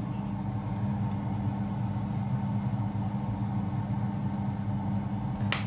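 A steady low mechanical hum with no change in pitch, and a short sharp click near the end.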